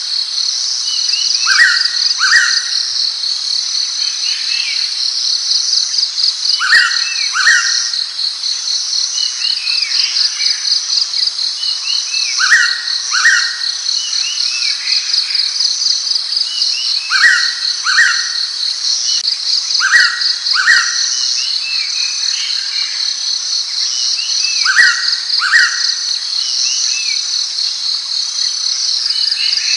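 Blue-winged pitta giving its two-note whistled call, each note dropping in pitch, repeated about six times at intervals of a few seconds. Under it runs a steady high pulsing drone of crickets.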